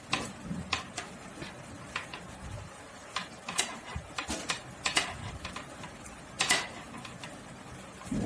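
Knitting needles clicking irregularly as stitches are purled by hand.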